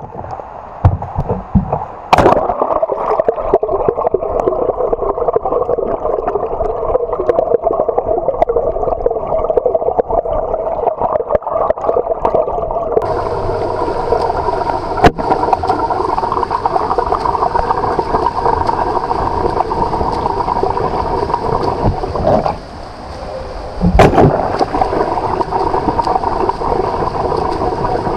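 Water churning and bubbling from a swimmer's freestyle strokes, heard muffled through a submerged camera. About halfway through, the sound turns brighter and hissier. A few sharp knocks stand out, one early, one in the middle and one near the end.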